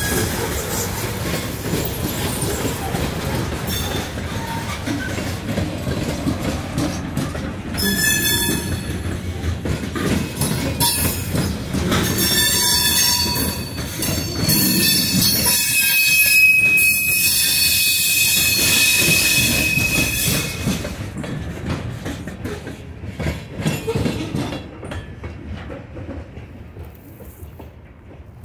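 Freight train cars, a centerbeam lumber car and covered hoppers, rolling past close by, their steel wheels running over the rails. Shrill wheel squeal comes and goes through the middle. The sound fades away near the end as the last car passes.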